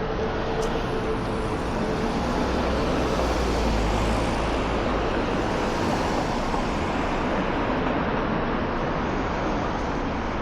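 Road traffic on a busy city street, with one vehicle passing close by that swells to a deep rumble about three to five seconds in, then fades back into the steady traffic.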